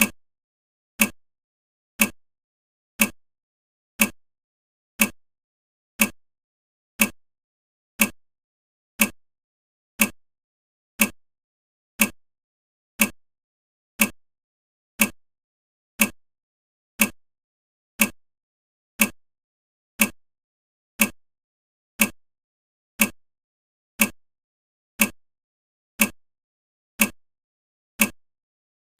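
Countdown timer's tick sound effect, one short sharp tick every second, marking off the seconds.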